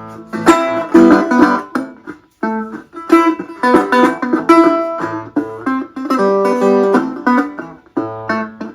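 A Dobro resonator guitar being played: quick runs of picked notes, with a brief break about two and a half seconds in and another near the end.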